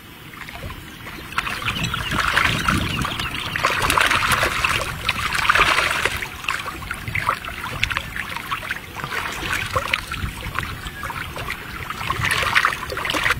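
Shallow water splashing and sloshing as something moves through it, a dense crackle of small splashes that swells louder around four to six seconds in and again near the end.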